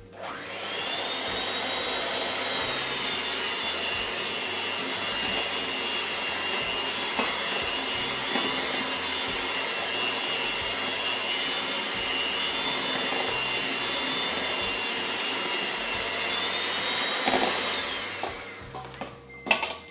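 Electric kitchen mixer running steadily for about eighteen seconds, mixing the wet bread-dough ingredients, with a high motor whine that drops slightly as it takes the load and rises again just before it switches off.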